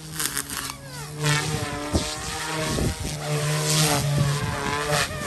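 Electric 3D RC helicopter with two brushless direct-drive motors (main and tail rotor) flying close by: a steady pitched drone from the rotors that shifts in pitch now and then as it manoeuvres, with a few sharp swishes.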